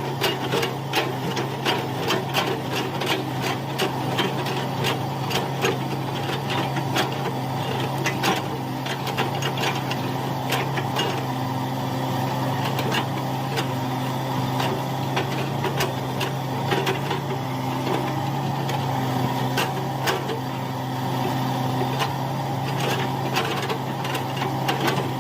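Hitachi excavator's diesel engine running steadily under work, with frequent irregular clanks and rattles from the machine.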